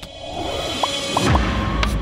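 Short logo sting over music: a rising whoosh, three quick electronic beeps about a second in, then a deep low hit with a sharp click near the end.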